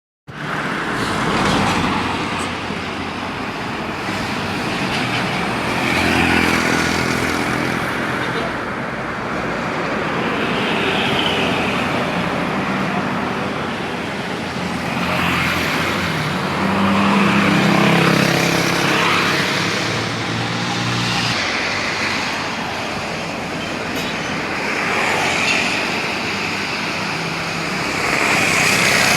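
Road traffic with heavy vehicles passing, engines running and swelling as they go by.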